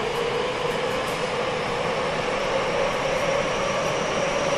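Tokyo Metro 10000 series subway train running, heard inside the car: its Mitsubishi IGBT VVVF inverter and traction motors give a steady whine that rises slowly in pitch over the wheel and rail noise.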